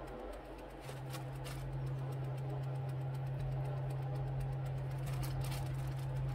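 A steady low hum from a motor or electrical appliance, with a few faint clicks about a second in and again near the end.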